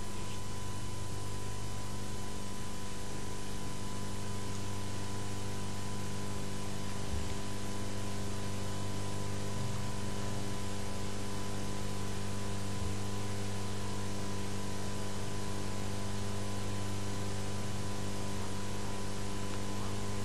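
Steady electrical hum with several fixed tones, the strongest low, over a constant hiss: background noise of the recording with nothing else happening.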